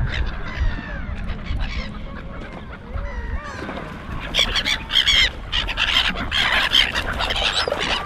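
Large birds giving loud, harsh honking calls in quick succession, starting about four seconds in, over fainter chirps of small birds.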